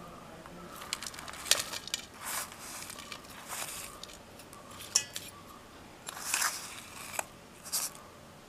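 A steel spoon scraping and tapping against stainless steel bowls as grated jaggery is pushed out of a small bowl into a larger one. Irregular short scrapes, with a sharp clink about five seconds in.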